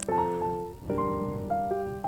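Background piano music: a chord struck at the start and another a little before the midpoint, then a few short single notes in the second half.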